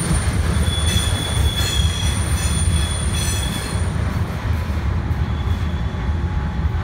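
Freight train rolling through a sharp curve: a steady low rumble of the cars on the rails, with high, steady wheel squeal from the wheel flanges grinding on the curve. The squeal fades out a little past halfway while the rumble goes on.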